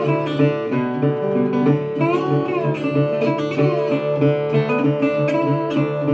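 Instrumental break in a folk song: acoustic guitar playing steadily under a melody line that bends up and down in pitch.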